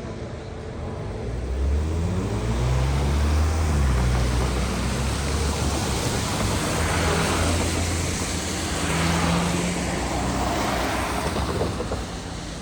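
Road traffic at an intersection: a vehicle's engine accelerating, its pitch rising from about a second and a half in, followed by the hiss of tyres on the road as traffic passes.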